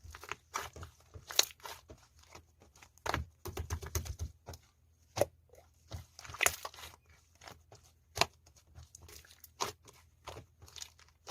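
Hands squeezing and working a crunchy material, giving irregular crackling, crinkling and crunching clicks with a few louder snaps.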